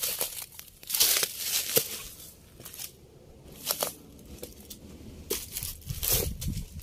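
Footsteps crunching through dry leaves and rubble: about six irregular dry crunches, the longest about a second in.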